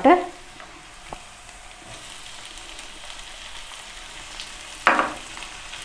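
Chopped onions and diced tomatoes sizzling gently in oil in a non-stick frying pan over low heat, a steady soft hiss, with a single click about a second in.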